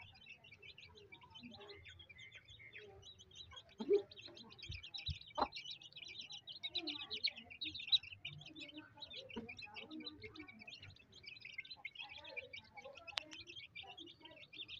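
A brood of chicks peeping continuously, many short high chirps overlapping, with softer lower calls and a few sharper sounds mixed in.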